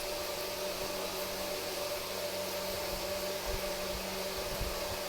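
Steady background hum and hiss, even throughout, with faint low thuds now and then.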